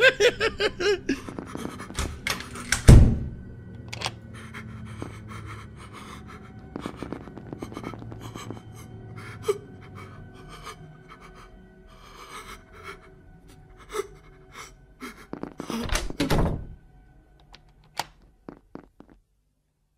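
A character's heavy panting breaths, broken by knocks and thuds, the loudest about three seconds in, with faint background music under it. It goes nearly quiet near the end.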